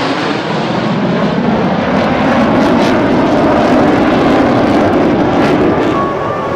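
Several F-16C/D fighter jets flying past in formation: a loud, steady jet roar that swells to a peak a few seconds in and eases off near the end.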